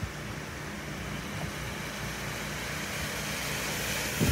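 Chrysler minivan driving slowly through a flooded street toward the microphone: its engine runs under the wash of tyres pushing through standing water, which grows steadily louder as it nears. A short knock comes just before the end.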